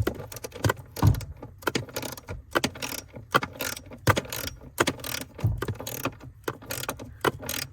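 Torque wrench ratchet clicking in short, irregular strokes while a nut is tightened.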